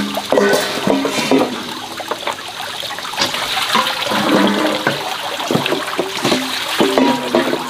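Water running and splashing steadily, as from a tap or poured water, with short pitched sounds scattered over it.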